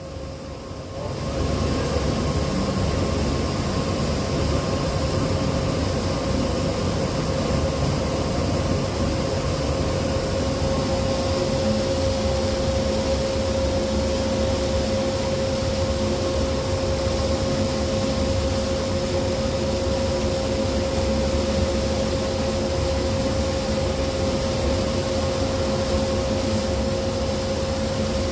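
Large laser cutting machine running while it cuts 3 mm MDF: a steady whirring, hissing machine noise with a constant hum that comes up about a second in and holds.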